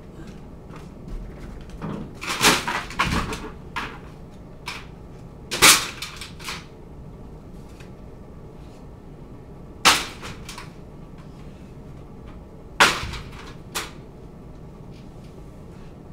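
Boards and junk being dropped and shifted in the cargo box of a moving truck: a clattering run of knocks a couple of seconds in, then single sharp bangs every three to four seconds.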